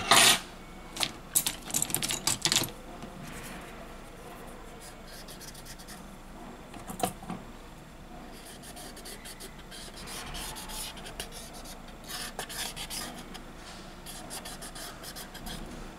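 Light rubbing and scraping of a cotton swab wiped along the edge of a phone's plastic-and-metal display frame to clear dust. A run of sharp clicks and scrapes from handling the frame comes in the first few seconds, then quieter scattered rubbing.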